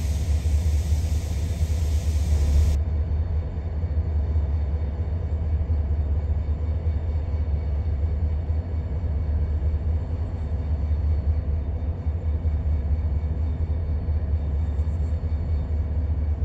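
EMD GP40-series diesel locomotive engines running with a steady low rumble. A steady hiss stops abruptly about three seconds in.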